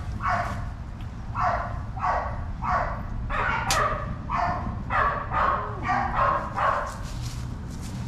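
A dog barking over and over, about two barks a second, stopping near the end. A single sharp click sounds a little past three and a half seconds in.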